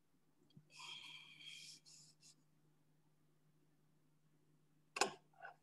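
Near silence on an open microphone line with a faint steady hum; a soft breath-like noise about a second in, and a short sharp click near the end.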